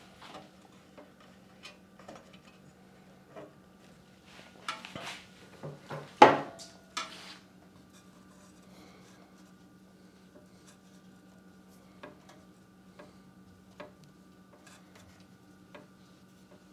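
Hands fitting a rubber hose at a small engine's plastic air cleaner housing: light clicks and rubbing, with a cluster of knocks and one sharp clack about six seconds in, over a steady low hum.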